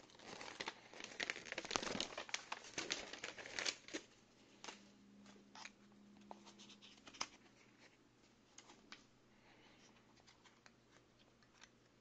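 Paper instruction leaflet being handled and folded, a dense crinkling rustle for the first four seconds. It gives way to scattered light taps and rustles as the packaging's foam insert is lifted out of the gift box.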